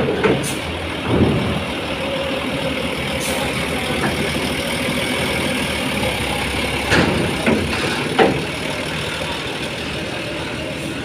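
Bus engine running steadily, with a few short knocks: one about a second in and three close together about seven to eight seconds in.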